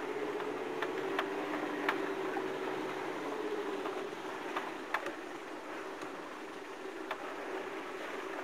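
Land Rover engine running steadily as it climbs, a slowly wavering hum, with scattered sharp knocks and rattles, the strongest about two and five seconds in.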